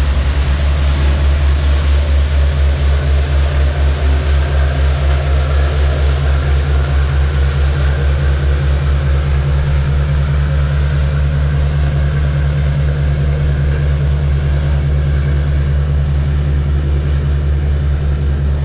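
Low engine drone with a quick, regular throb that softens slightly toward the end.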